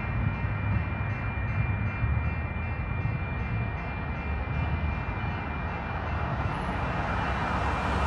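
Steady low vehicle rumble with a hum underneath, the hiss growing a little louder near the end.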